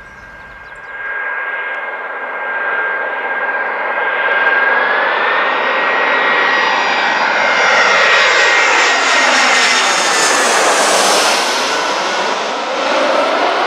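Twin-engine jet airliner on final approach flying low overhead: a high turbofan whine over a rushing jet noise, growing loud and falling in pitch as the aircraft passes over near the end.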